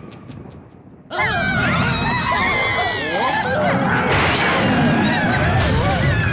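Several cartoon characters screaming and wailing in fright together, their high, wobbling voices overlapping. It starts suddenly about a second in, after the faint tail of a short music jingle.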